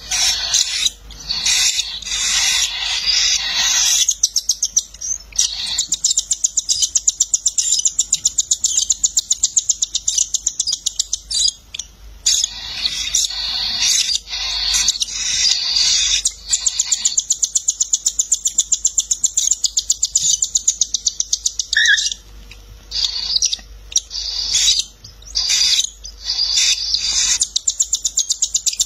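Cockatiel chicks giving rapid, pulsing, high-pitched begging calls while their parent feeds them beak to beak. The calls break off briefly a few times.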